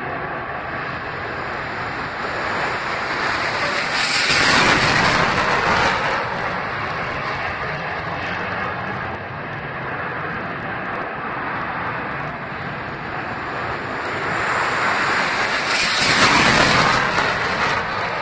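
Jet engine noise from Blue Angels F/A-18 Hornets flying over, a steady rushing noise that swells to a loud peak twice: about four seconds in and again near the end.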